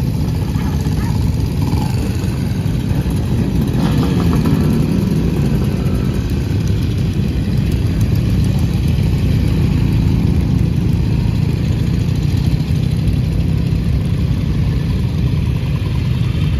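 Several vintage motorcycle engines running at low speed as a line of bikes rides past one after another, their exhaust notes blending into a steady drone.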